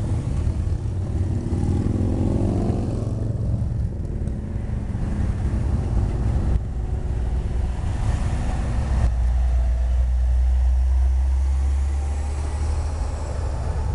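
Road vehicles passing close by with steady engine rumble. A motorcycle engine rumbles past in the first few seconds, its pitch sliding as it goes by. A pickup truck drives past about midway, and a deep low rumble swells between about 9 and 12 seconds.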